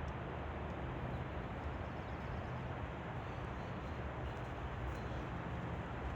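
Steady outdoor background noise, strongest in the low end, with no distinct events.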